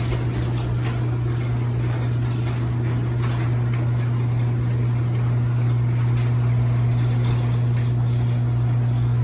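Garage door, freshly lubricated with Blaster garage door lubricant, moving on an electric opener: a steady motor hum over the rumble of the door running along its track.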